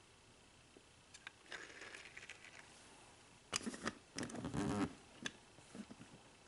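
Handling noise from a small diecast model car and its plastic parts: a soft rustle about a second and a half in, then a quick cluster of sharp clicks and taps a little past halfway, and one more click after it.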